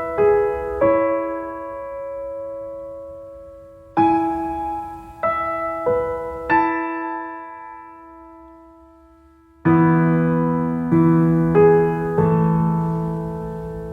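Background piano music: slow, sparse notes and chords struck and left to ring and fade. About ten seconds in, a fuller chord with lower notes comes in, followed by a few more struck notes.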